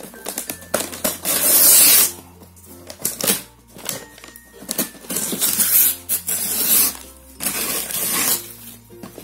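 Paper wrapping being ripped off a cardboard box of a multi-shot firework cake in several long tears, the loudest about a second in.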